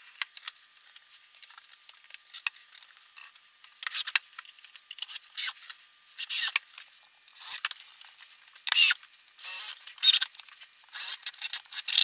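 Short scraping, rubbing and clicking bursts, several seconds apart at first and then closer together, from pine boards being fitted and screwed together with a cordless drill.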